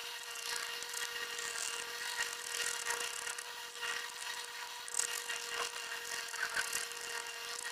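Hobby knife scraping the graphite core of a pencil in short, irregular scratchy strokes, over a steady hum.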